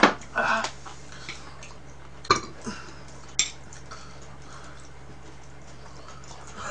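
Tableware clicking and knocking on a table: a cup set down with a sharp knock at the start, then a few sharp clicks of chopsticks and dishes about two and three and a half seconds in, over a faint steady hum.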